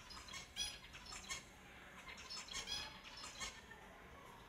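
Finches calling, short chirps in quick clusters through the first three and a half seconds, then a lull.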